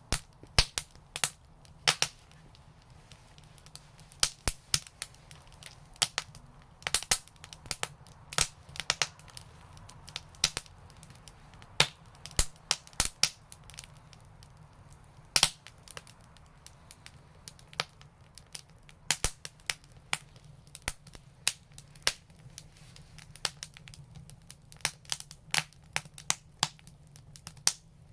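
Wood fire crackling in an outdoor brick fireplace: irregular sharp pops and snaps, sometimes several a second, over a faint steady low background.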